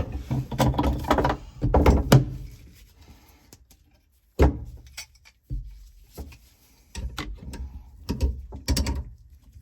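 Hand tools clicking, scraping and knocking against a Toyota W56 transmission's shifter while a stuck, worn-out shifter bushing piece is worked loose. The sounds come in clusters of sharp clicks and knocks, with a short quiet pause about three seconds in and a loud knock after it.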